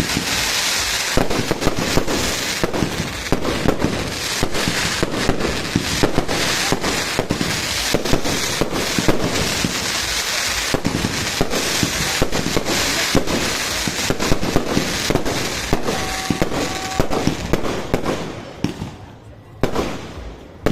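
Fireworks display: rapid, continuous bangs and crackling explosions, dying away over the last couple of seconds.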